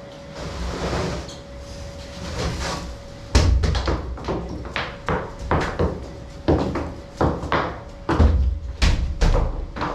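A steady hum with a string of irregular knocks and clatters over it, some with a heavy low thud. They begin about a third of the way in and come roughly twice a second.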